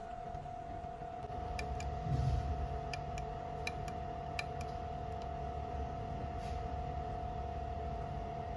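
Steady machine hum with a constant high whine and a low rumble, and a run of small sharp clicks about two to four and a half seconds in, from a finger working the thumbwheel switches of the homogenizer delay timer.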